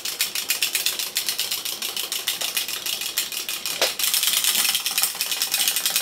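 Wind-up chattering teeth toy clattering: a fast, even run of sharp clicks, a little louder about four seconds in.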